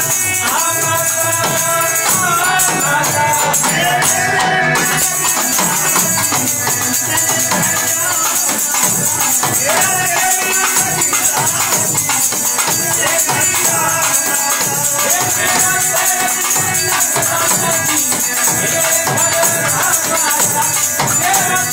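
A Himachali Guga folk-devotional group performing live: singing over a harmonium, with jingling hand percussion and a steady drum beat.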